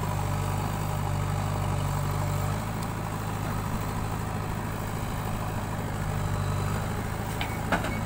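JCB 3DX backhoe loader's diesel engine running steadily while it swings its arm, its note changing about two and a half seconds in. A sharp clank comes near the end as the bucket comes over the trolley.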